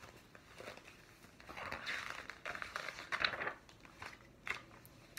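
Paper pages of a picture book rustling and crinkling as they are turned, loudest about two to three seconds in, with a few light taps.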